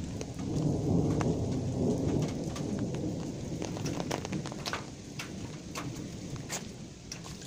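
Thunder rumbling in a thunderstorm, swelling about half a second in and dying away over several seconds. Steady rain runs underneath, with sharp drops ticking close by.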